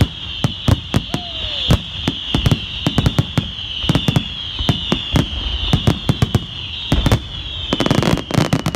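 Fireworks finale barrage: rapid, overlapping bangs under a high shrill whistle that keeps sliding down in pitch, building into a dense crackling volley near the end.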